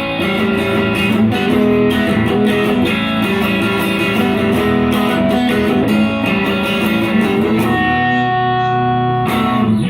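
Guitar music: plucked notes in a steady run, settling into a held chord about eight seconds in that cuts off abruptly near the end.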